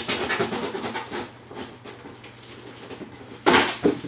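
A cardboard box being cut open with a knife and handled: a run of quick scraping and rustling, a quieter stretch, then a louder rasp of cardboard about three and a half seconds in.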